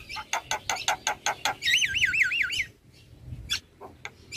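Javan myna (jalak kebo) singing: a quick run of sharp, squawky notes, about six a second, then a warbling whistle that swings up and down about five times, then a few scattered harsh notes.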